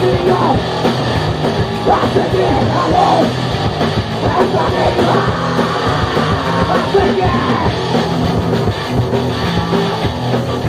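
Punk rock song playing, with a steady beat and yelled, sung vocals over the band.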